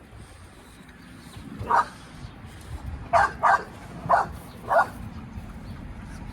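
A dog barking five times: one short bark, then four more in quick succession.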